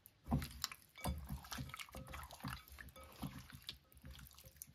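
Bare hands kneading and squeezing raw chicken wings in marinade in a glass bowl: irregular wet squelches and squishes.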